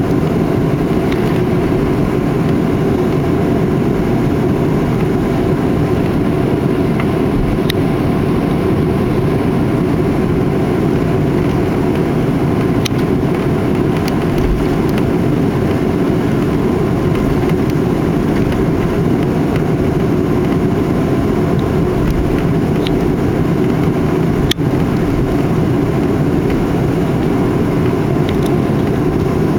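Steady low rumble of an airliner cabin after landing, from the idling jet engines and the cabin air, with a few faint clicks.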